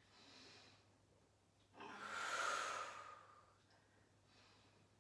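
A woman breathing audibly through a slow side-bend stretch: a faint breath at the start, one long, louder breath about two seconds in that trails off, and another faint breath near the end.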